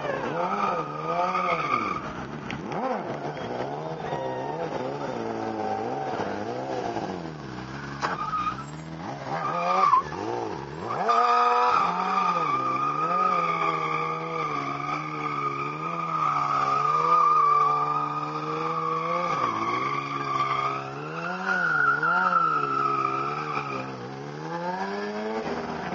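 BMW S1000RR sport bike's inline-four engine revving up and down over and over during stunt riding, with long stretches of steady tyre squeal on the tarmac.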